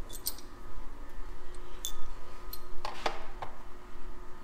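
Steel quarter-inch-drive Snap-on Wobble Plus extensions clicking and clinking as they are handled and set into a plastic holder tray in a toolbox drawer. There are a few scattered sharp clicks, with several close together about three seconds in.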